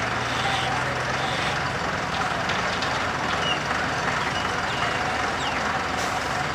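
Heavy truck engine running steadily, a continuous low hum with no change in speed.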